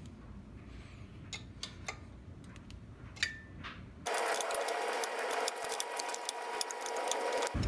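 Steel wrenches clicking on the oil-line fitting of a motorcycle rocker box, a few light metallic taps at first. About four seconds in it turns into a fast, steady run of metallic clicking.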